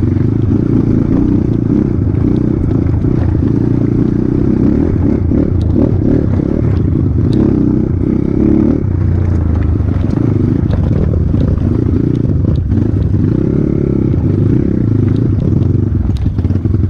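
Off-road motorcycle engine running steadily, with scattered clattering and scraping throughout.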